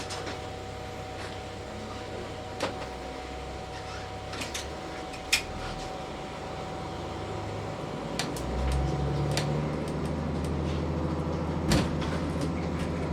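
Diesel railcar engine idling under a steady hum, with a few sharp clunks, then about eight seconds in the engine throttles up and gets louder as the train pulls away.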